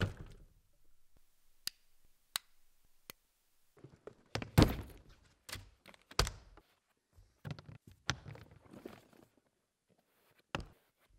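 Thuds, knocks and rustles of trainers being pulled off and handled on a stage floor, the loudest thud about four and a half seconds in. Before that, a single thud and then three sharp clicks spaced evenly.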